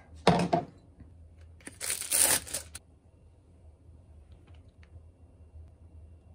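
Food wrapper crinkling in two short bursts, a brief one and then a longer one about a second long.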